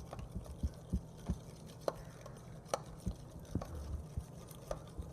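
Spoon knocking and scraping in a bowl of soapy slime mixture as it is stirred: irregular light clicks and taps over a low steady hum.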